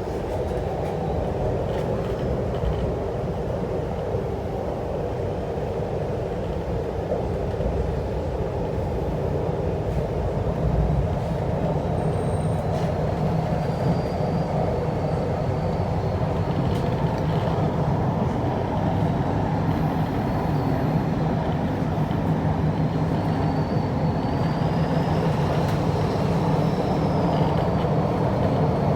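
Inside a CRRC Changchun EMU train car: steady rumble of the train running on the track, slowly growing louder. A faint high whine rises and falls in the second half.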